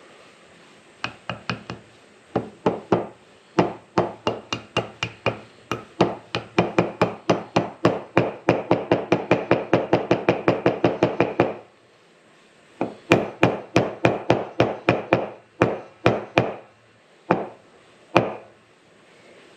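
Hammer tapping a brass drift to drive a new bushing into a side-by-side's bearing carrier (knuckle), metal on metal. The strikes start about a second in, speed up into a fast run of taps, stop for a moment, then go on in a slower series.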